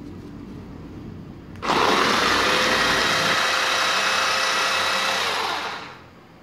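Portable USB-rechargeable food chopper's motor spinning its triple stainless-steel blades through shallots. The motor starts abruptly a little under two seconds in, runs steadily for about four seconds, then dies away just before the end.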